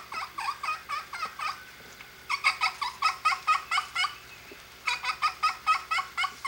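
Turkey call worked by a hunter, giving a hen turkey's yelp: short, evenly spaced yelps about five a second, in three runs with brief pauses between them. This is the yelp used to call in the gobbler.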